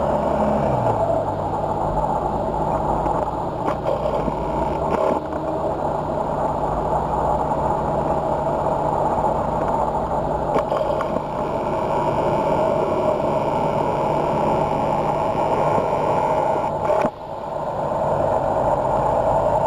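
Road traffic: a motorcycle engine passes close, its note falling in pitch just after the start, then heavy lorry engines run steadily as a slow convoy approaches.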